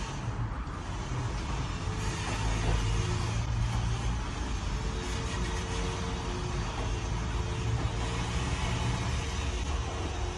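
Steady road noise of a car driving along at speed: a continuous low rumble of engine and tyres, with traffic around it.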